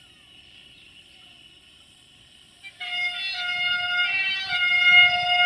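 Electric locomotive's horn: a brief toot about halfway in, then a long, loud blast of several tones sounding together, with the mix of pitches shifting partway through.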